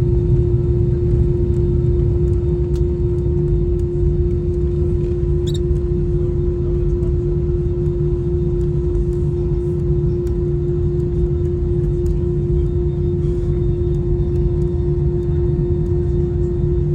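Airliner cabin noise: a steady low rumble with a constant hum over it, unchanging throughout, with a few faint clicks.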